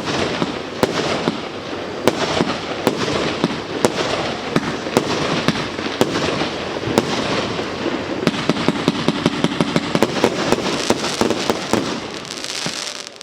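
Fireworks going off: a continuous dense crackle studded with sharp bangs. The bangs come thick and fast for a few seconds near the end before the noise drops off.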